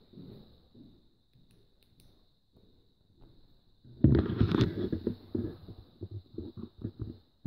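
Footsteps on old wooden floorboards and stairs. A heavy, scuffing step comes about four seconds in, then a quick run of separate thuds, about four a second.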